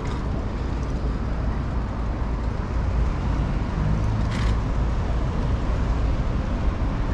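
City street noise heard from a moving bicycle: a steady rumble of road traffic mixed with wind on the microphone, with a short clatter about four seconds in.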